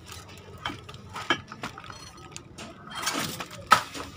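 Loose metal motorcycle spare parts clinking and knocking as they are shifted about by hand: a handful of separate clinks, the sharpest near the end.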